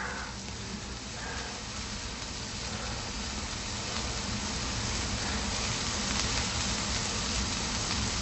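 A steady rushing noise that slowly grows louder and cuts off abruptly at the end.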